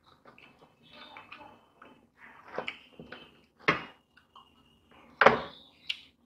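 Stainless steel bowl and plate clinking and scraping as a hand picks fried fritters out of the bowl and sets them on the plate, with several sharp knocks, the loudest about three and a half and five seconds in.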